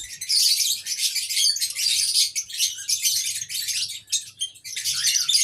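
Aviary birds chirping and tweeting in a dense, continuous high-pitched chorus.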